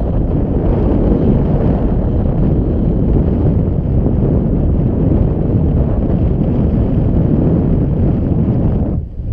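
Wind noise from the airflow of paragliding flight hitting a GoPro Hero 4 Black's microphone: a steady, loud, low rumble that dips briefly near the end.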